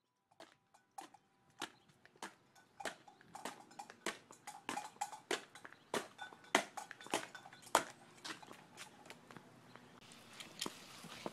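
A run of sharp knocks and clicks, roughly two a second and getting busier. A faint steady hiss comes in near the end.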